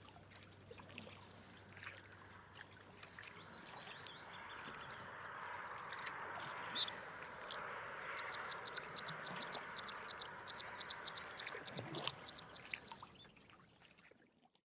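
Faint outdoor ambience: a steady hiss like running water, with a quick run of rapid high-pitched animal chirps in the middle and a single click near the end, fading out just before the end.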